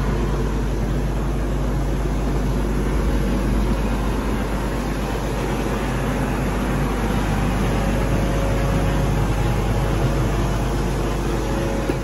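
New Holland combine's diesel engine running steadily.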